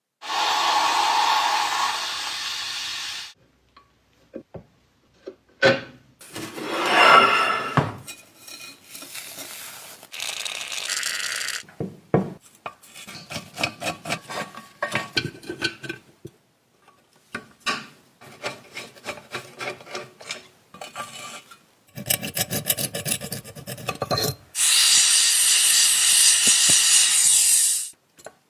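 Hand rubbing, scraping and rasping strokes on the old Peugeot coffee mill during restoration, in several short stretches. Some stretches are steady scraping and others are quick repeated strokes, with brief gaps between them.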